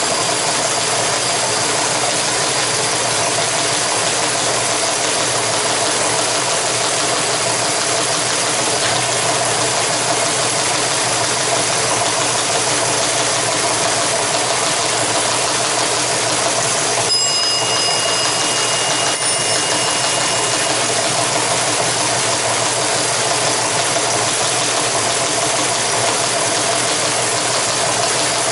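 Teletype Model 19's Model 15 typebar page printer clattering steadily as it prints out a received message, its motor running underneath.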